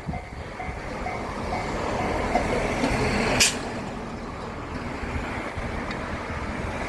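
Japanese level-crossing alarm ringing in an even beat about twice a second, soon buried under rising vehicle noise. A short, sharp hiss comes about three and a half seconds in, followed by steady vehicle noise.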